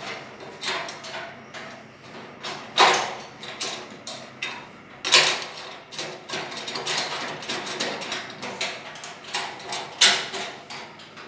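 Metal clanks and clicks from a stainless steel vertical autoclave's lid clamps and fittings as they are handled and locked down. It is a run of many small knocks, with three sharp, loud ones about three, five and ten seconds in.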